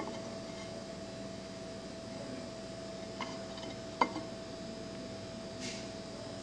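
Ceramic plate lightly clicking against the table twice as it is handled, over a steady faint hum in the room.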